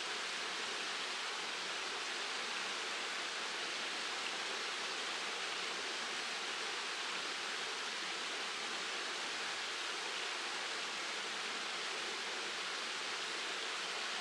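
Waterfall pouring into a pool: a steady, even rush of falling water with no change in level.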